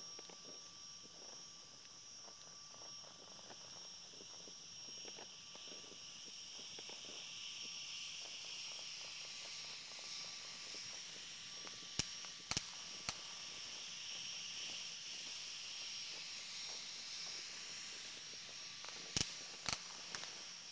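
Distant fireworks going off: three sharp pops about halfway through and two more near the end, over a steady high-pitched chorus of night insects.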